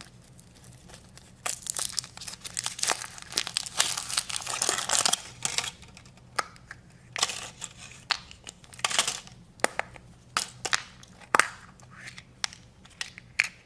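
Foil wrapper of a chocolate surprise egg being crinkled and torn off by hand: irregular crackling and rustling with many sharp snaps.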